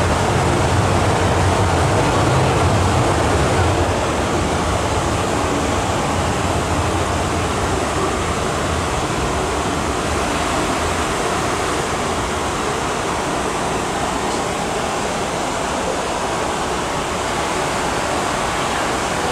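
MTR M-Train electric train pulling out of an underground station behind platform screen doors. Its low rumble is strongest for the first few seconds, then eases into a steady rushing noise as it runs into the tunnel.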